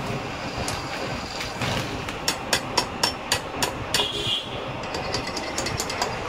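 Engine parts and a hand tool being handled: a run of sharp metallic clicks and taps about two seconds in, roughly four a second, and lighter, quicker clicks near the end, over a steady rumbling background noise.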